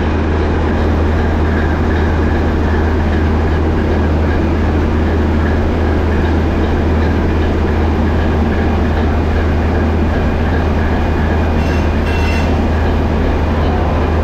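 Large inline diesel main engine of a river passenger launch running steadily, heard up close in its engine room: a loud, constant low drone.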